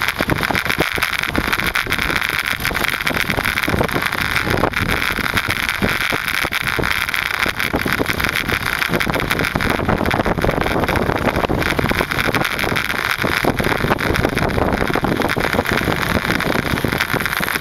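Steady wind rush buffeting the microphone with road noise, as heard while riding a bicycle.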